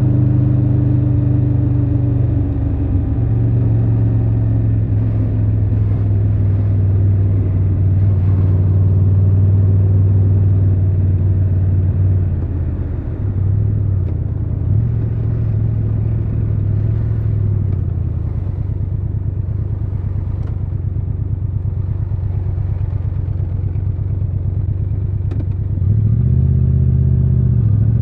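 Triumph Tiger 1200 Rally Pro's three-cylinder engine running at low, steady revs while riding, its pitch changing a few times, with a short dip about halfway through and a rise near the end.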